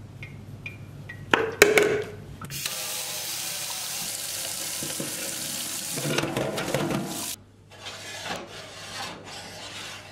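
Kitchen tap running, water splashing into a stainless steel sink and pot for about five seconds, then shut off suddenly. Sharp metal clanks of the steel pot being handled come before the water and after it.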